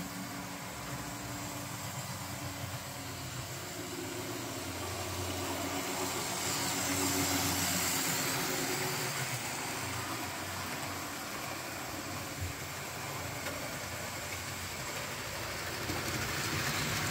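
OO scale model train running past on the track: a steady hum and rumble of motor and wheels that grows louder as the coaches pass close by, about halfway through, then eases off.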